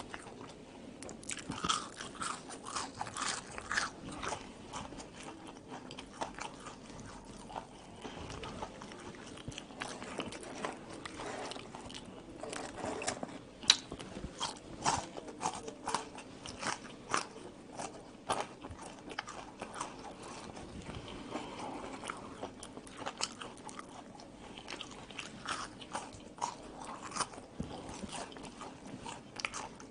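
A person biting and chewing sauce-covered French fries, giving many short crunching clicks that come in clusters, with one sharper crunch about halfway through.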